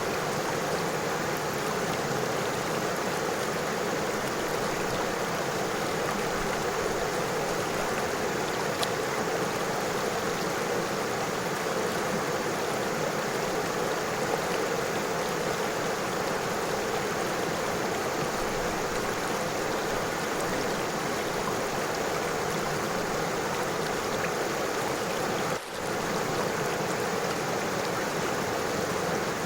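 River water flowing steadily over stones, an even rushing murmur. The sound dips for a split second near the end.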